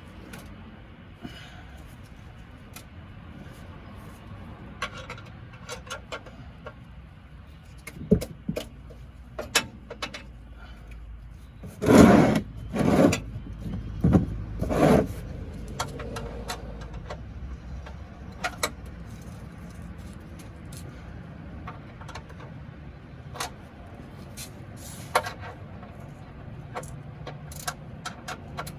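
Metal tools and parts clinking and knocking during hands-on work on a pickup truck, with a burst of four louder rattles about halfway through, over a steady low hum.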